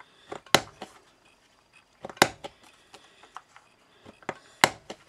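A hand-held corner rounder punch snapping through card three times, about two seconds apart, as the card's corners are rounded off. Fainter clicks and rustles of the card being turned come between the punches.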